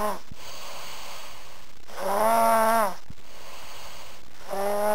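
Snoring in a slow breathing rhythm: a drawn-out snore with a steady, even pitch about two seconds in, lasting nearly a second, and another starting near the end.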